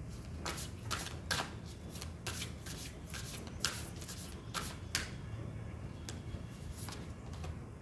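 A deck of large oracle cards being shuffled by hand, overhand. The shuffle is a string of about a dozen quick slaps and riffles that stops near the end.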